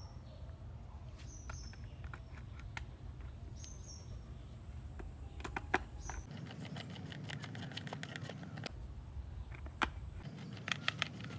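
Faint scattered clicks and ticks of small screws being driven and tightened into a plastic toy truck's chassis, with a few short high chirps in the background.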